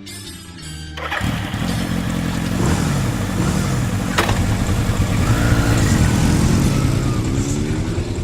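Several motorcycle engines running and revving together, their pitches rising and falling, starting abruptly about a second in after guitar music. A sharp click sounds near the middle.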